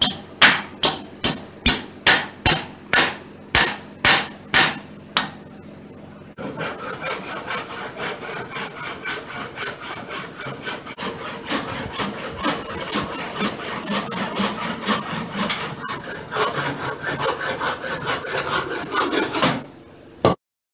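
Hammer striking nails into the eye of a steel axe head to wedge in a wooden handle: about a dozen sharp metal strikes, two to three a second. Then a handsaw cutting through a tree branch clamped in a vise, quick back-and-forth rasping strokes for about fourteen seconds, ending in a single knock.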